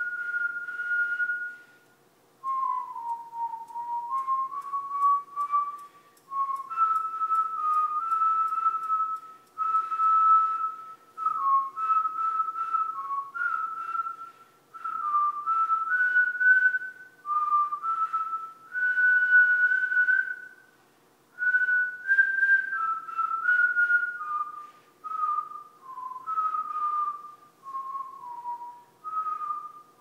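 A person whistling a tune: a string of short and held notes that step and slide between pitches, with brief pauses between phrases.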